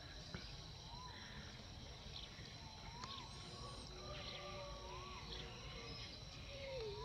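Faint short squeaky calls, about four in all, each rising then falling in pitch, spaced a couple of seconds apart over a hushed outdoor background with a thin steady high tone.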